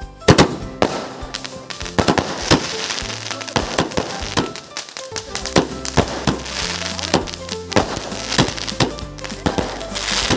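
A 30-shot firework cake firing shot after shot: sharp bangs about twice a second, with bursts of hiss between them.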